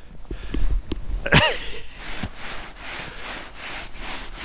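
Snow being swept and scraped as a man lies in it making a snow angel, with a rhythmic swishing of about two to three strokes a second that starts about two seconds in. Just before it there is a short falling vocal exclamation as he goes down into the snow.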